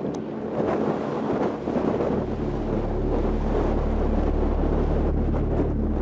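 Epic trailer music: a rushing, wind-like sound-design texture, joined by a deep steady bass drone about two seconds in.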